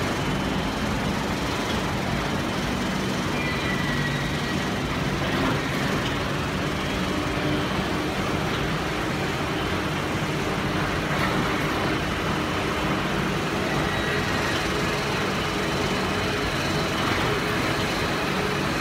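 Veneer drying line and peeling machinery running: a steady, dense machine noise without distinct knocks, with faint hum tones coming and going.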